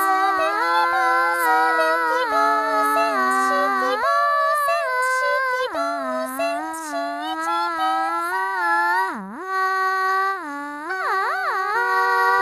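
A single voice singing a song melody in long held notes with slides between them and a wavering vibrato near the end.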